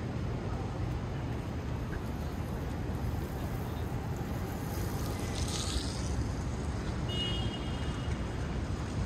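City street ambience: a steady low rumble of traffic, with a brief hiss about five seconds in and a short high-pitched squeak a little after seven seconds in.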